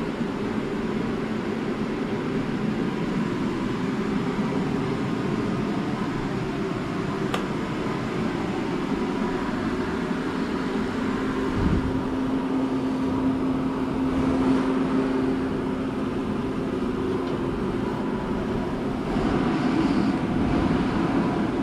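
Turbocharged Honda four-cylinder engine idling steadily, with a steady hum joining in around the middle for several seconds.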